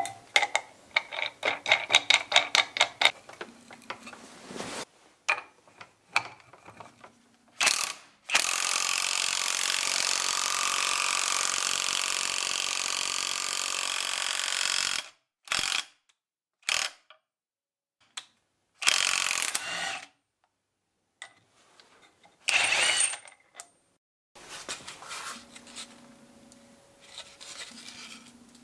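DCA ADPB280 cordless impact wrench, freshly repaired, being test-run on a bolt. After a quick series of sharp clicks, it runs for about seven seconds in one steady hammering burst, then gives several short bursts in the second half.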